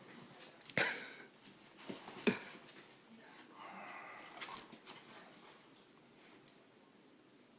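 Black Lab–pit bull mix dog licking a person's face and hands: a few wet, smacking licks with snuffling between them.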